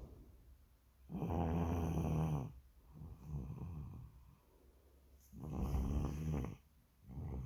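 A young child snoring in sleep: two loud snores, about a second in and about five seconds in, with a softer snoring breath between them and another beginning near the end.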